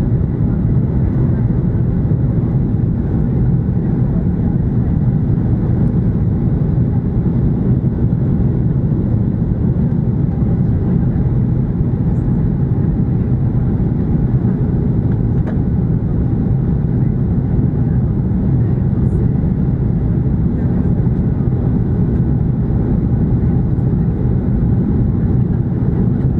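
Steady low rumble inside the cabin of a Boeing 737-800, the noise of its CFM56 jet engines and airflow heard from a window seat.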